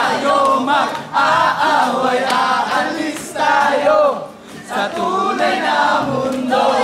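A group of people singing and shouting together in unison, unaccompanied, in short phrases. There are brief breaks about a second in and again past the middle.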